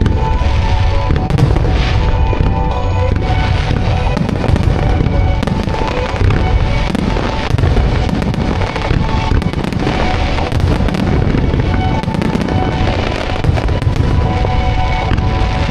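A fireworks display with many shells bursting in quick succession and a continuous low rumble of reports. Show music plays over loudspeakers throughout, as in a music-synchronised star mine.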